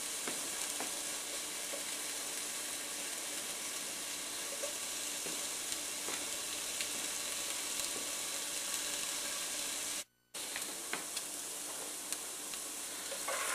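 Sliced onions and butter sizzling steadily as they sauté in a skillet, softening toward translucent. There is a brief dropout about ten seconds in, and near the end a spoon stirs through the onions.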